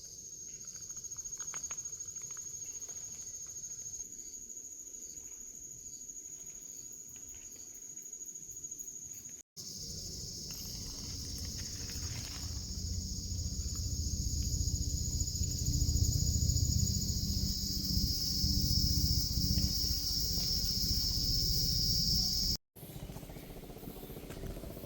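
Forest insects shrilling in a steady, high, even drone, louder in the middle stretch, where a low rumble runs beneath it. The sound drops out briefly twice.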